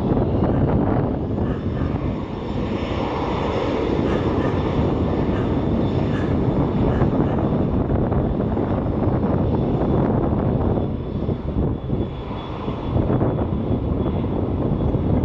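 Jet airliner engines running loud and steady: a heavy rumble with a faint high whine held above it, easing briefly about eleven seconds in.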